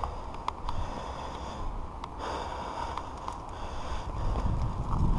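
Giant Reign mountain bike rolling slowly over a dry dirt trail: tyre crunch with scattered sharp clicks and rattles, and the rider breathing hard through the nose. A low wind rumble on the microphone builds near the end as the bike picks up speed.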